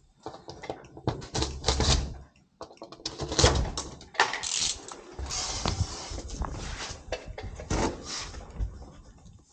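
Irregular knocks, thumps and scraping as styrofoam insulation boards are handled and pressed into place on a wall.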